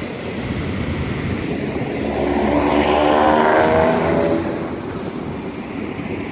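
An engine passes by, swelling to its loudest about three seconds in and fading away by about four and a half seconds, over a steady rush of wind noise.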